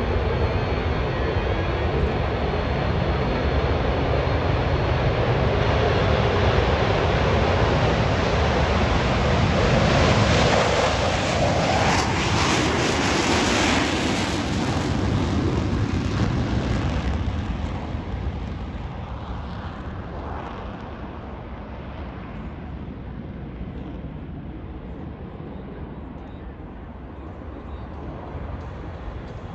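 Four F/A-18 Super Hornet jets taking off together in afterburner. Their loud jet noise builds to a peak about ten to fourteen seconds in, then fades from about seventeen seconds as they climb away.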